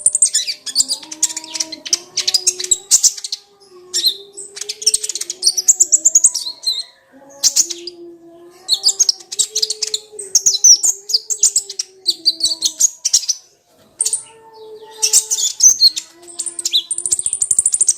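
Kolibri ninja (a sunbird) singing: loud, rapid high-pitched twittering chirps in bursts of one to three seconds, with short pauses between them.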